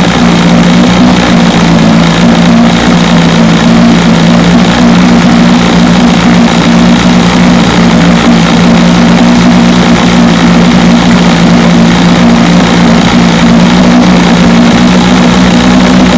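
1973 Johnson 25 hp two-stroke outboard motor running loud and steady at a constant speed, after its ignition points have been cleaned to cure a miss.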